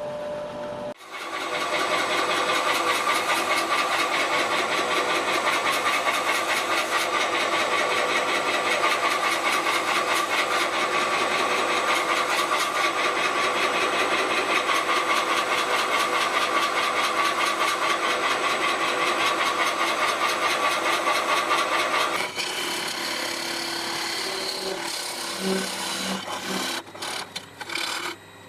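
Wood lathe spinning a yew workpiece with a tool or abrasive held against it: a steady scraping rub that drops off about 22 seconds in, then quieter, uneven scraping.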